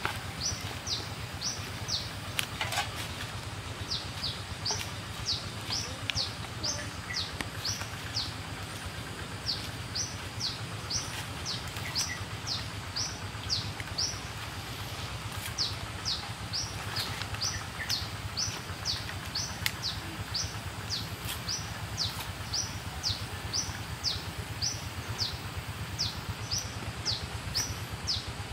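A bird calling over and over, a run of short, high, downward-slurred notes at about two to three a second, broken by brief pauses, over a steady low hum.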